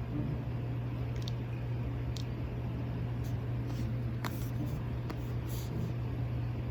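Steady low hum of room tone, with a handful of faint, brief clicks and taps.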